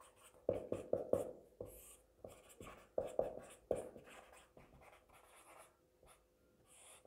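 Marker pen writing on a whiteboard: a run of short, irregular strokes that stops about four seconds in.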